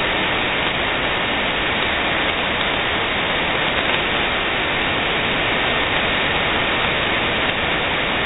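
Steady hiss of shortwave band noise from a single-sideband receiver tuned to the 20-metre band, with no voice coming through.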